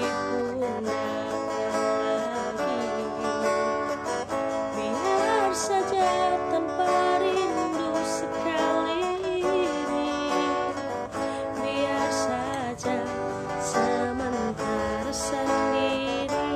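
A woman singing a melody, her voice gliding between notes, over a strummed acoustic guitar.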